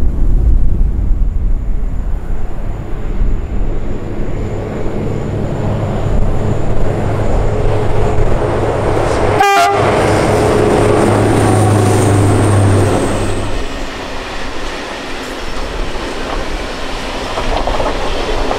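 Freight train passing close by: the locomotive's low hum and rumble builds and then falls away a little past the middle, with a short horn note about halfway through. After it, a string of open freight wagons rolls past with rail clatter.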